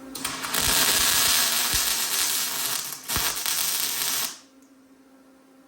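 Welder crackling while tack-welding steel: one run of about three seconds, a brief break, then about another second, cutting off sharply.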